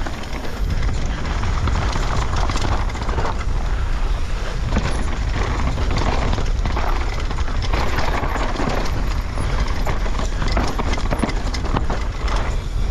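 Downhill mountain bike ridden at speed over rough ground: a dense, irregular clatter of chain, frame and suspension knocks over a heavy low rumble of wind on the microphone.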